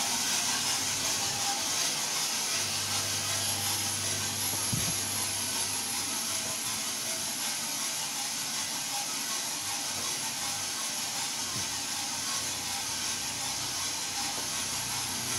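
Gas-fired drum coffee roaster running steadily mid-roast. A constant hiss from the burner and airflow sits over a low hum from the drum's geared electric motor.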